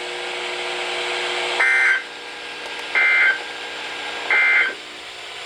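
Emergency Alert System SAME header on NOAA Weather Radio: three short bursts of buzzy two-tone digital data about 1.3 s apart, the coded header that opens a new alert, here a severe thunderstorm warning.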